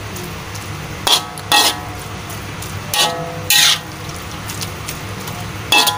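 Metal spatula stirring and scraping wet fern shoots in a metal wok, about five scrapes and clinks with a slight metallic ring, over a steady low hum.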